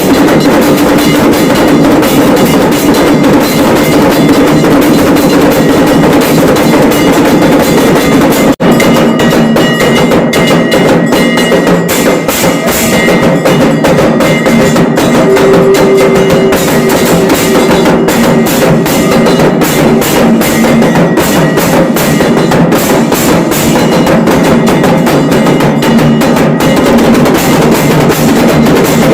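Loud, dense rhythmic percussion: drums beating fast with ringing bells, broken by a brief cut about eight and a half seconds in.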